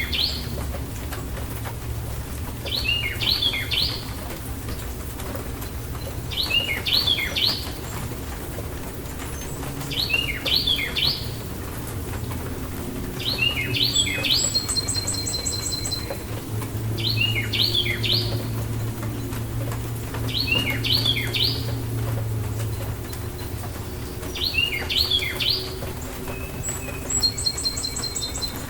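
A songbird repeating the same short, chirpy phrase about every three and a half seconds, with a second bird giving a quick high trill twice, over a low steady rumble.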